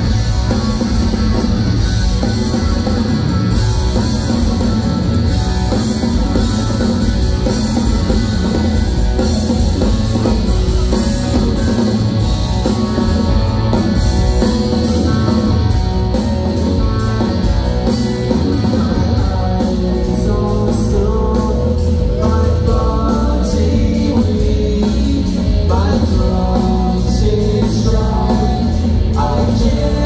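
Shoegaze rock band playing live at full volume: distorted electric guitars over bass and drum kit, with singing over the top.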